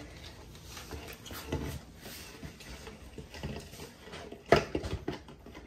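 Small taps and scuffs of a Great Pyrenees puppy moving about on a tile floor, with one sharp knock about four and a half seconds in.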